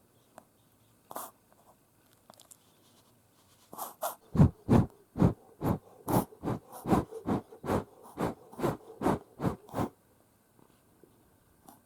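Yorkshire terrier reverse sneezing: about four seconds in, a run of quick, forceful inhalations starts, about three a second, and stops after some six seconds.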